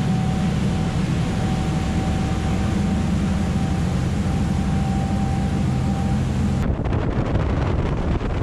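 Tour boat's engines running at speed, a steady low drone over the rush of the churning wake, with a faint steady whine on top. About seven seconds in, the sound cuts to gusty wind buffeting the microphone.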